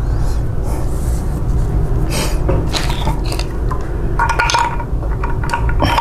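Small metal and plastic parts of a photocopier's waste-toner unit being handled: scrapes and clicks, with a short ringing metallic clink about four seconds in and another near the end. A steady low rumble runs underneath.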